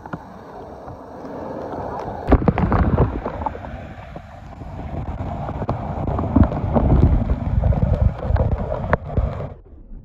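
Pool water splashing and sloshing, picked up by a phone sealed in a plastic bag, with rubbing handling noise on the microphone. Near the end the sound suddenly turns dull and muffled.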